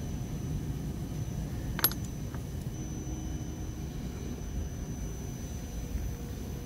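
Steady low outdoor background rumble, with one sharp click about two seconds in.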